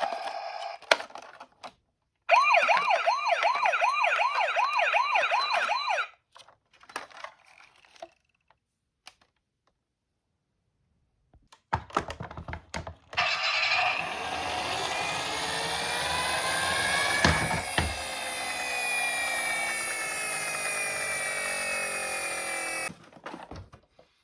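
Electronic toy ambulance siren warbling rapidly up and down for about four seconds. After a few clicks and a pause comes a longer rushing, whirring sound, with pitches sliding up and down, that runs for about ten seconds and then cuts off.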